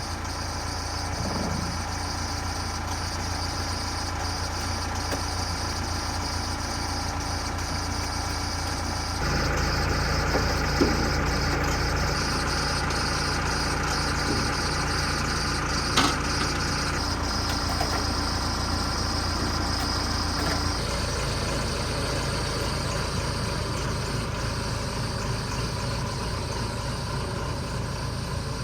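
An engine running steadily at idle, its hum stepping up about nine seconds in and shifting again about twenty-one seconds in, with a couple of faint clicks.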